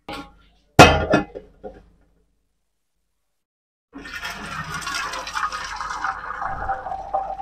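A loud knock about a second in; then, from about four seconds in, hot water pouring steadily from a steel pot through a perforated steel colander into a steel bowl as boiled rice vermicelli is drained.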